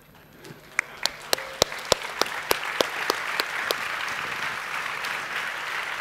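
Audience applauding: a few sharp single claps stand out over the first few seconds while the clapping builds to a steady wash.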